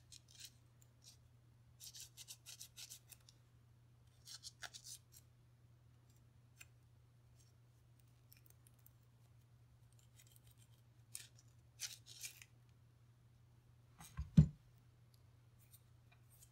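Faint scratchy scrubbing in several short bursts as the firing-pin channel of a Ruger 10/22 bolt is cleaned out, over a faint steady hum. Near the end comes a single low thump, the loudest sound.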